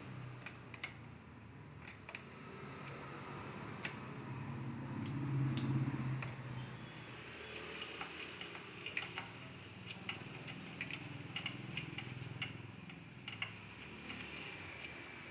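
Hand tools clicking and tapping irregularly on the motorcycle's metal rear carrier and backrest fittings as they are worked into place, the clicks coming thickest in the second half, over a low steady hum.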